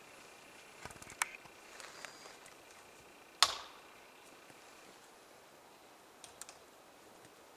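A few soft clicks about a second in, then one sharp, loud crack with a brief tail about three and a half seconds in, and two faint clicks near the end, over a quiet background.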